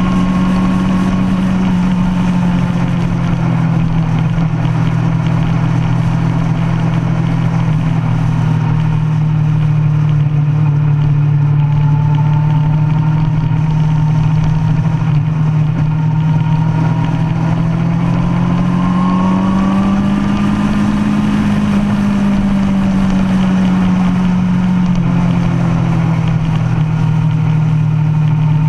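2005 Kawasaki ZX-10R inline-four with a DanMoto racing exhaust running hard under load at track speed, a steady engine note that rises in pitch about two-thirds of the way through and then drops back.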